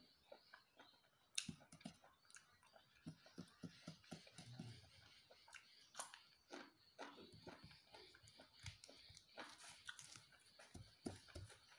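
Faint close-up chewing and eating: irregular soft mouth clicks and smacks as a person bites and chews pieces of food.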